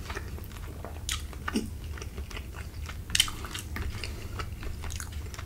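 Close-miked chewing of creamy fettuccine Alfredo: wet mouth smacks and short clicks, with sharper clicks about a second and a half in and again after three seconds.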